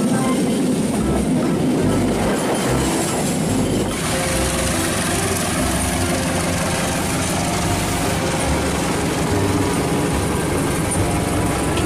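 Passenger train coaches rolling past close by, wheels running on the rails. About four seconds in, after an abrupt change, it becomes a passenger train approaching behind two diesel locomotives, their engines running steadily under the wheel noise.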